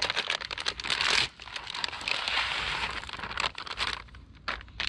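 Plastic packets of 3 mm fishing pellets crinkling and tearing as they are handled and ripped open.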